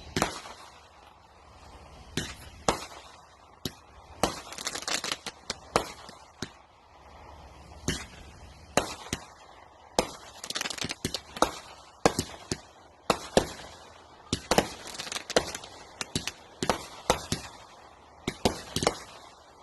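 Consumer fireworks going off: a string of sharp bangs at uneven intervals, some packed into quick clusters.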